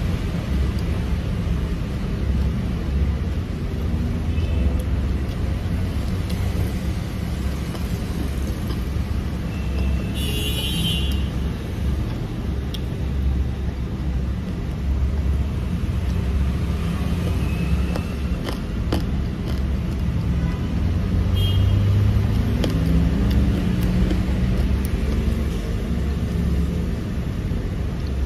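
Steady low rumble of road traffic, with one vehicle's engine rising in pitch as it speeds up about three-quarters of the way through. A few light clicks sound over it.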